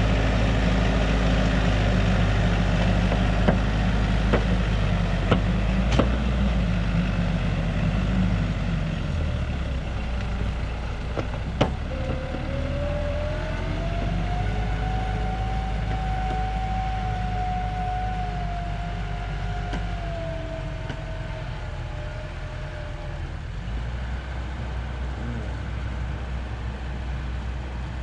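Tractor diesel engine running under load, with a few sharp knocks early on. Partway through, a whine rises in pitch, holds for several seconds and then sinks and fades.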